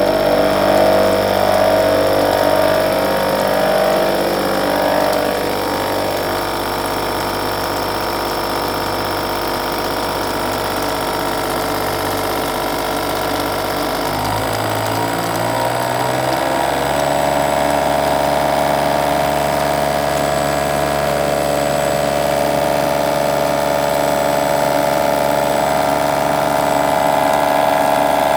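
ProtoTrack CNC milling machine running a programmed cut on an aluminium part: a steady machine hum of several tones, which shifts in pitch about halfway through.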